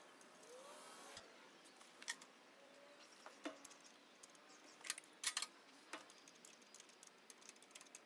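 A few faint metallic clicks and taps of bolts, lock washers and nuts being fitted by hand to a steel hydraulic-coupler bracket, with a quick cluster of clicks about five seconds in.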